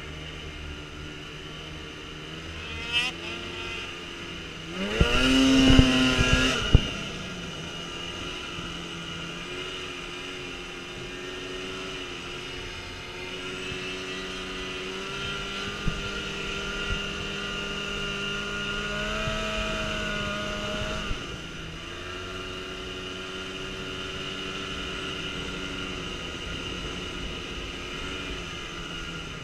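Snowmobile engine running under way. About five seconds in it is throttled hard, its note rising sharply and holding for about two seconds before dropping back; it then runs at a steady pitch, higher through the middle, easing off around twenty-one seconds.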